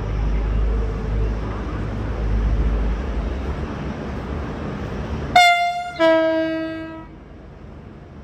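V/Line VLocity diesel multiple unit pulling out with a low rumble, then sounding its horn twice about five seconds in: a short high note followed by a longer, lower note.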